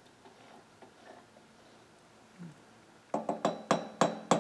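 Quick metal-on-metal taps, about six in a row starting about three seconds in, each ringing briefly: a T-handle hex key striking the chainsaw cylinder held in a mini lathe chuck to nudge it true while it is being indicated in. Faint handling clicks come before.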